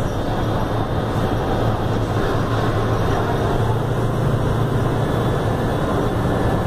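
Mercedes-Benz OF-1519 city bus's front-mounted diesel engine running steadily at cruising speed, mixed with tyre and road noise, heard from inside the bus near the front.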